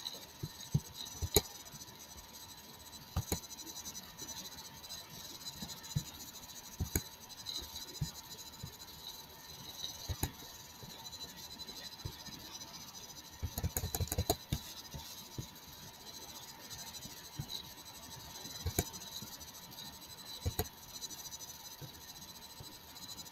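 Scattered single clicks of a computer mouse, with a quick run of clicks a little past halfway, over a faint steady electrical hum.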